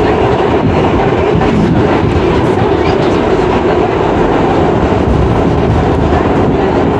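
R62A subway car running along the track: a steady loud rumble of wheels on rail with clickety-clack, and a steady hum held throughout.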